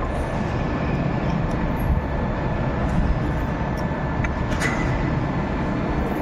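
Steady rumbling machinery din of a large workshop, with a faint whine held through it. A couple of faint metal clicks come about two-thirds of the way in, from a hand tool on the pump parts.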